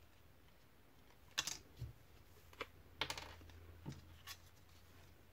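A handful of light, irregular clicks and taps, with one dull thump about two seconds in, as a paper clip, paper cut-outs and small craft tools are handled and set down on a glass cutting mat.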